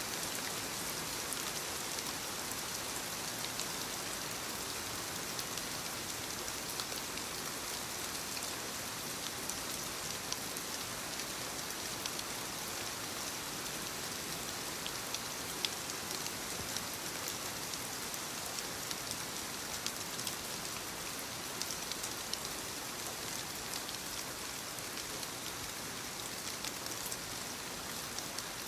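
Soft, steady rain falling on leaves: a constant hiss with many small drop taps scattered through it.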